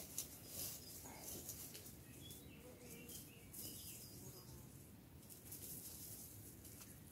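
Faint bird chirps over soft rustling and crackling of twigs and leaves being handled.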